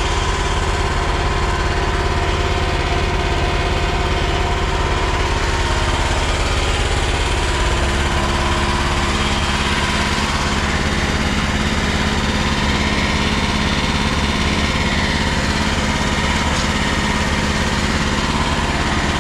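EGN EG36C mini skid steer's engine running steadily, its note changing about eight seconds in.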